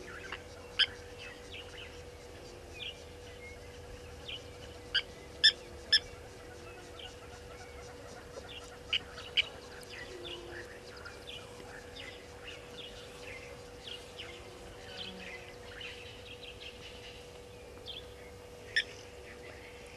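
Blacksmith lapwings giving sharp, metallic 'tink' calls like a hammer striking an anvil: one about a second in, a quick run of three around five to six seconds, a pair near nine seconds and one more near the end. Fainter bird chirps and a steady faint hum run underneath.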